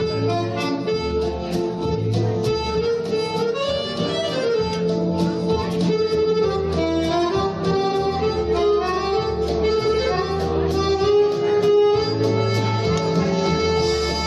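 Instrumental music: a free-reed instrument plays a melody over guitar and a steady bass line.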